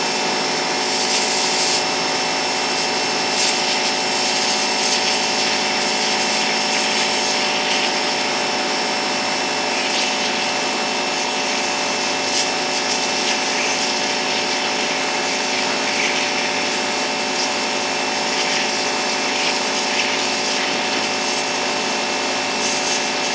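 Pressure washer rated at about 4,200 PSI running with the trigger held, its pump and motor giving a steady drone of several held tones. The high-pressure water jet hisses as it blasts into the pumpkin's rind to carve a mouth.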